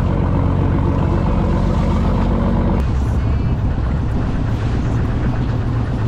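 Boat engine running steadily, a loud low hum; its sound shifts slightly about three seconds in.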